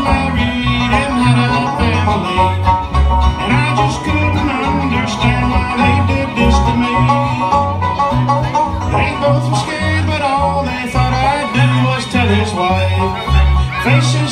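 Live bluegrass band playing an instrumental passage: a fiddle carrying the melody over strummed acoustic guitar and a steady, evenly pulsing bass line.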